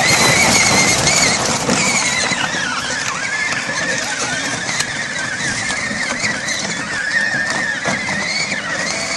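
Battery-powered ride-on toy jeep's electric drive motors and gearboxes whining under load, the pitch wavering as the plastic wheels churn through slushy snow and gravel.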